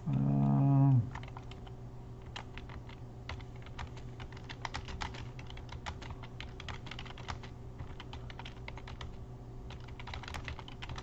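Typing on a computer keyboard: a run of irregular keystrokes and clicks. It opens with a man's voice holding one steady note for about a second, the loudest sound.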